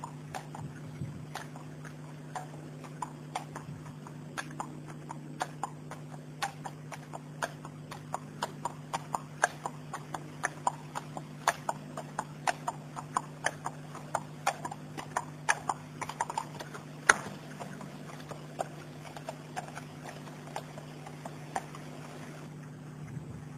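Horse's hooves clip-clopping: a run of sharp, separate hoofbeats at about two to three a second, busiest through the middle, over a steady low hum.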